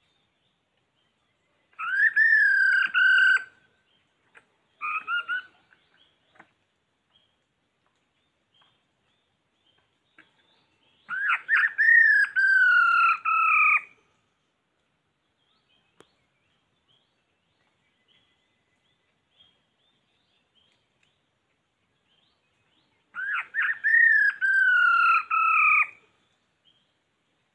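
A bird calling in three loud bouts about ten seconds apart, with a short burst between the first two. Each bout is a quick run of notes followed by a longer note that falls in pitch.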